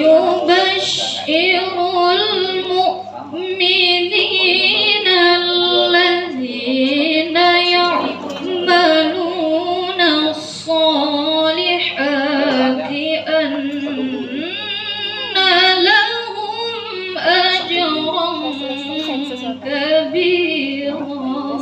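A woman's voice reciting the Quran in the melodic tilawah style, with long ornamented held notes and short pauses between phrases, over a steady low hum.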